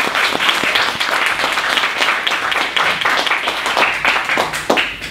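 Audience applauding in a lecture hall: many hands clapping together, dying away near the end.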